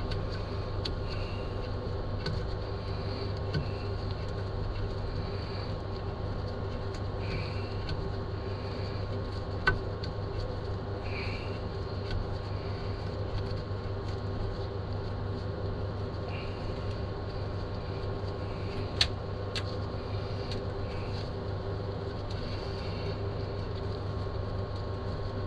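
A steady, even motor hum with a few faint clicks, and two sharp metallic clicks about ten and nineteen seconds in, from chain adjuster bolts being screwed back into a dirt bike's swingarm by hand.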